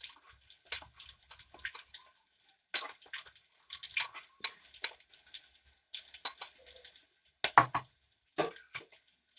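Sliced onions frying in oil in a pan, crackling and sizzling in irregular pops. A louder knock about seven and a half seconds in.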